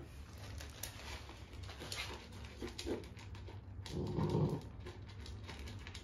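Dog eating dry kibble from a plastic bowl, with scattered small crunches and clicks, and a brief, low dog vocalization about four seconds in.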